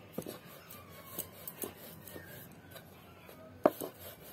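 Rolling pin rolling dough flat on a flour-dusted wooden board: soft rubbing with a few light knocks, and a sharper knock near the end.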